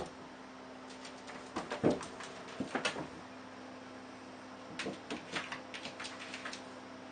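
A cat's paws and claws scrabbling and tapping on the floor of an empty bathtub as it pounces, in two bursts of quick clicks and thumps, about two seconds in and again around five seconds in, over a steady hum.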